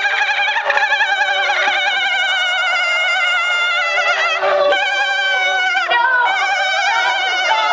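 A high-pitched, warbling voice held almost without a break, its pitch wobbling quickly up and down, with short breaks about halfway through and again near the end.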